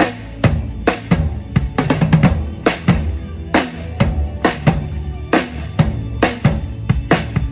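Drum kit played through a stage PA in a steady beat, kick and snare strikes with rimshots, during a band's sound check.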